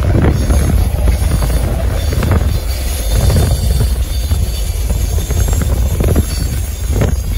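Freight train rolling past: a heavy, steady low rumble of the wagons with irregular clanks and knocks from the wheels and couplings.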